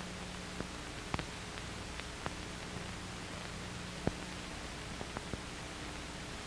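Steady hiss with a faint hum and a few scattered clicks and pops, the most distinct about a second in and about four seconds in: the surface noise of an old 1940s film soundtrack with nothing else playing.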